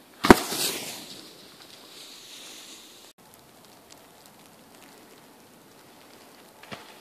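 Ski jumper's skis landing on packed snow: one loud smack about a third of a second in, then a short sliding hiss that fades within about a second.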